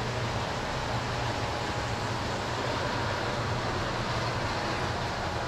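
Miniature garden-railway model train running on its layout: a steady mechanical rumble with a low hum and hiss.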